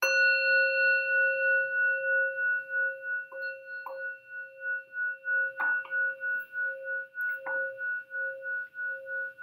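Buddhist kin (bowl-shaped altar bell) struck once with a wooden striker at the start and left to ring, several steady tones sounding together with a slow wavering pulse as it fades. A few faint knocks sound as it rings. The strike signals the start of chanting.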